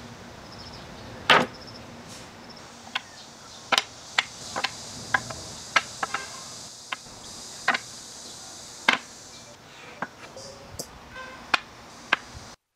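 Cut wooden parts being set down on a wooden bench and knocked against each other: a string of irregular, sharp wooden knocks, the loudest about a second in.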